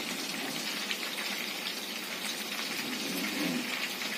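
Prawns frying in hot oil in a pan: a steady sizzle with fine crackling.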